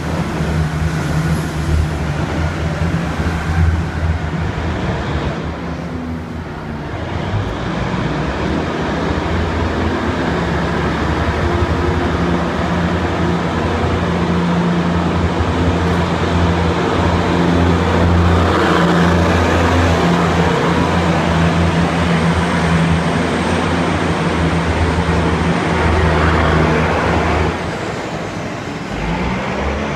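Taiwan Railway DR2700 diesel railcars pulling out of the station and passing close by: a steady low diesel engine drone with wheel and rail noise. It swells as the cars go past and drops off suddenly near the end as the last car moves away.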